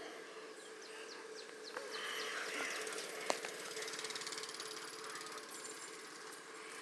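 Faint, steady hum of a Doodlebug minibike's small engine running some way off, over light outdoor ambience. A single sharp click comes about three seconds in.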